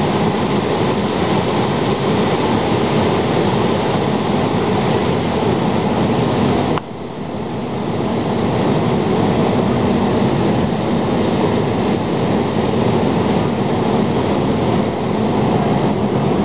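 Cabin noise of an Embraer E170 on final approach: the steady rush of airflow and the wing-mounted GE CF34 turbofans. About seven seconds in, the higher part of the noise drops off suddenly, then builds back up.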